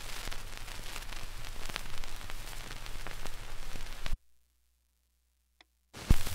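Surface noise of a shellac 78 rpm record after the song has ended: steady hiss and crackle with scattered clicks over a low hum. About four seconds in it cuts to dead silence, and near the end it comes back with a sharp thump.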